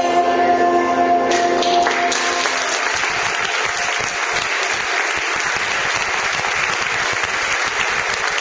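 A song with instruments ends about two seconds in, and a room full of people breaks into steady applause.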